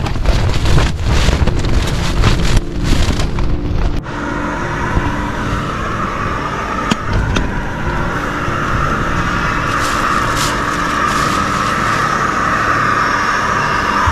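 Strong wind gusting and buffeting the tent for about four seconds, then, after a sudden cut, the steady hiss of a gas camping stove burner heating water for tea.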